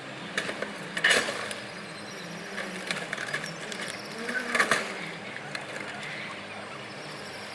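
Forklift engine running steadily, with clattering metal knocks about a second in and again at about four and a half seconds, plus a few lighter clicks.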